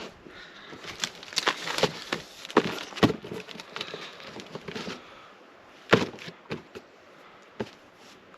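Cardboard T-shirt folding board in use: its taped cardboard panels are flipped over, giving a run of sharp flaps and knocks with the rustle of the shirt, then one louder slap about six seconds in and a few lighter taps near the end.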